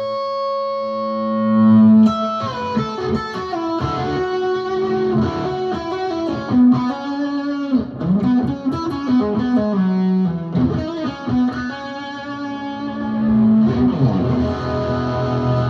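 Mulecaster, a Mule Resophonic Telecaster-style electric guitar, played through a Line 6 Helix Stadium XL amp modeller: a long ringing note dies away, then a run of picked single-note lines with string bends, twice near the middle and again near the end.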